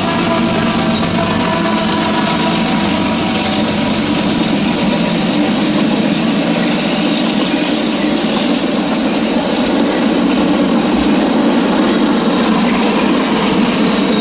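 Train rolling past with a steady, loud noise of wheels on rail. A faint wheel squeal fades out in the first second.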